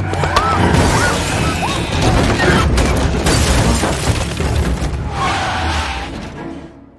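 Film sound effects of a car crash in which deer strike the car: heavy impacts and shattering windshield glass over a tense music score, then the car sliding across gravel. The din fades out near the end.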